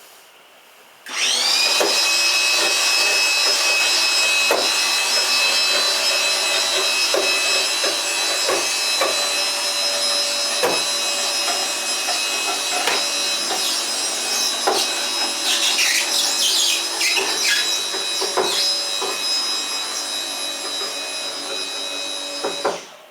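Electric winch motor starting about a second in with a quick rising whine, then running steadily as it hauls a homemade wooden elevator loaded with a refrigerator, with scattered knocks from the car and pulleys; it stops shortly before the end.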